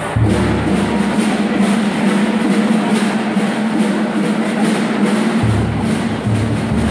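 Middle school marching band playing, woodwinds and brass over a drumline keeping a steady beat. The deepest bass part drops out for a few seconds and comes back in strongly near the end.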